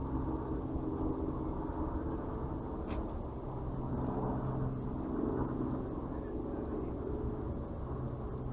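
Steady low hum of an engine or motor running nearby, with outdoor background noise. A brief faint high beep sounds about three seconds in.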